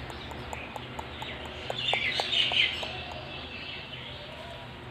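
Pet parakeet giving a short burst of high-pitched chirps about two seconds in.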